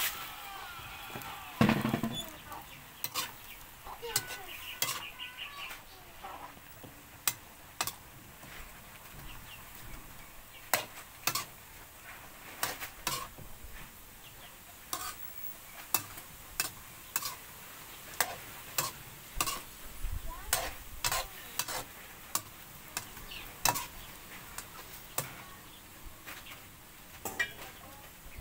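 Metal spatula scraping and knocking against a metal wok while vegetables and shrimp are stir-fried, over a faint steady sizzle. The knocks come about once a second, unevenly, with the loudest about two seconds in.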